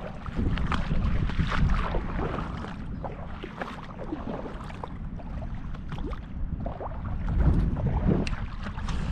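Wind buffeting the microphone in a low rumble, with scattered rustles and clicks, louder gusts about half a second in and again near the end.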